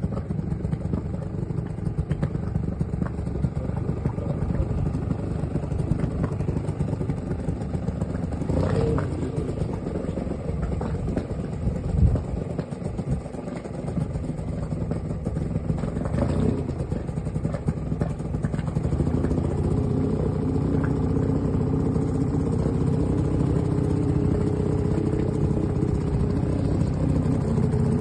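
Small boat's motor running steadily while moving through floodwater, its engine note becoming steadier and fuller about two-thirds of the way in.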